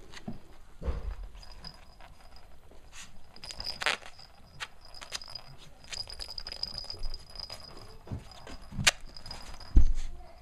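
Cavalier King Charles spaniel puppies scuffling over plush toys on a blanket: rustling, scratching and soft knocks, with a few sharper thumps, the loudest near the end.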